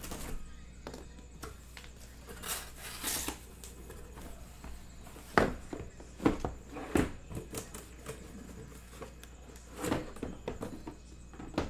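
Cardboard shipping case being opened by hand: flaps scraped and folded back, and the sealed hobby boxes inside bumping and sliding. Scattered knocks and rustles, the loudest knocks a few in a row about five and a half to seven seconds in.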